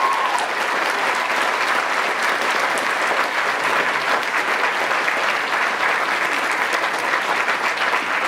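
A large audience applauding, steady dense clapping from many hands.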